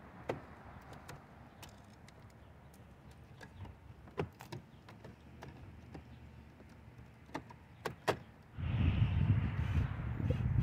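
Sharp plastic clicks and light knocks as car door trim and switch-panel pieces are handled and pressed into place. About eight and a half seconds in, a louder steady rushing noise starts and runs on.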